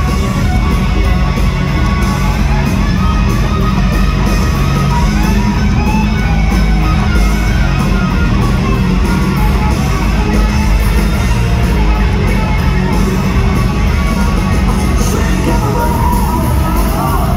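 Hard rock band playing live at concert volume: distorted electric guitar over drums and bass, heard through the hall's PA.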